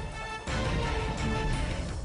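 Intro music with a steady beat; it gets louder about half a second in.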